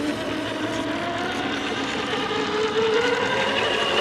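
Scale RC crawler's electric motor and gear drivetrain whining under throttle, its pitch wavering. It gets louder and higher about three seconds in.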